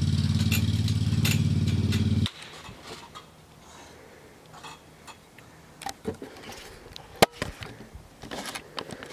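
A steady engine drone, low and even, that cuts off abruptly a little over two seconds in. After that only faint background remains, with a few light taps and one sharp click about seven seconds in.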